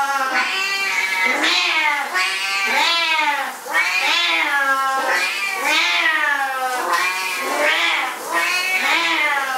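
Two Siamese cats yowling loudly and almost without pause, long meows that arch up and down in pitch and sometimes overlap, about one call a second. This is agitated calling.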